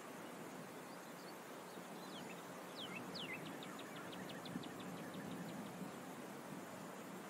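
A small bird calls over a steady outdoor hiss. It gives a few short falling whistles about two to three seconds in, then a fast trill of evenly spaced notes, about seven a second, lasting about two seconds.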